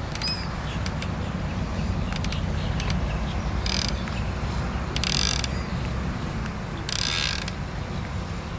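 Fishing reel's clicker ratcheting in short spells as line goes out behind a live bait: a few brief clicks at first, then three louder runs of about half a second each in the second half. Under it is a steady low rumble.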